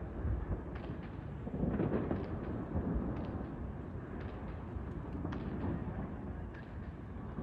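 New Year fireworks display: a continuous low rumble of booming shell bursts, swelling about two seconds in, with scattered sharp crackles and pops.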